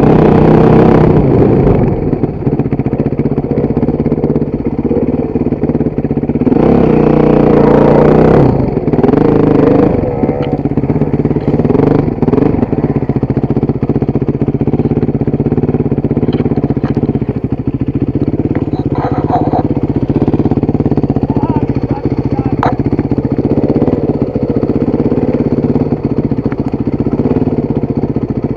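Motorcycle engine running under way, the throttle opened up briefly near the start and again about seven seconds in, then running steadily at lower revs.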